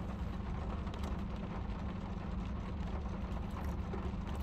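A steady low mechanical hum with no change in pitch or loudness.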